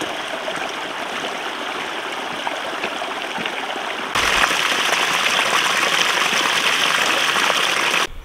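A stream running: a steady rush of water that turns suddenly louder about four seconds in and cuts off just before the end.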